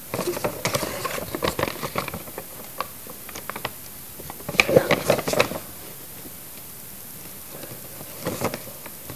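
A sheet of printer paper crackling and rustling as it is handled close to the microphone: a run of quick crackles, a louder cluster about halfway through, and a few more near the end.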